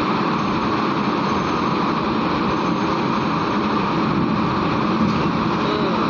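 Heavy diesel truck engines running in a steady, continuous drone, as tronton trucks drive off a ferry.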